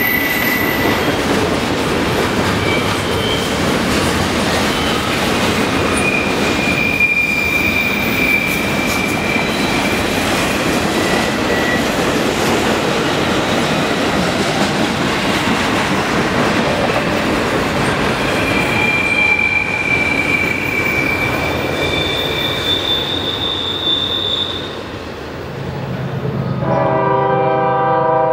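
Double-stack intermodal freight train rolling past on a curve, wheels and cars running steadily, with high wheel-flange squeals that come and go. Near the end, after a short dip, a locomotive horn sounds a steady chord over a low engine hum.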